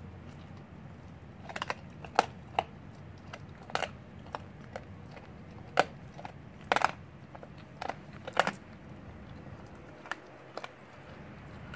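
Blue Bay Shepherd chewing a raw rabbit's rib cage and leg bones, with irregular sharp cracks and crunches as the bones break. They start about a second and a half in and come every half second to second, thinning out near the end.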